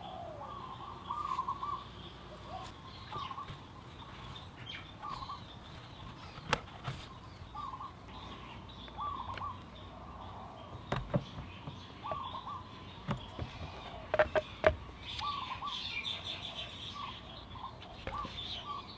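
Small birds chirping again and again, short calls every second or so. A few sharp clicks and knocks come through the middle, the loudest a quick cluster near the two-thirds mark.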